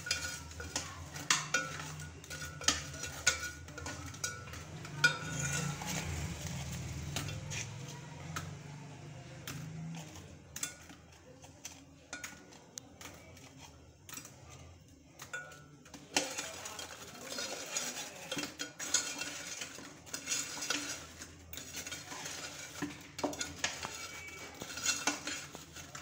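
Repeated clinks, knocks and scraping of utensils against a metal pan as fried bread pieces are put into sugar syrup and turned to coat them. A low hum runs under the first ten seconds.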